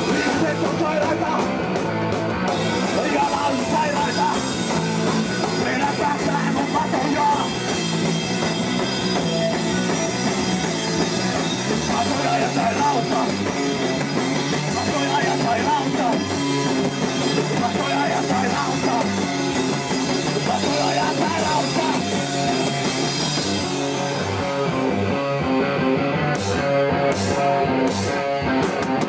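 Hardcore punk band playing live: distorted electric guitar and fast drums with cymbals. Near the end the full playing thins out to a few separate crashes.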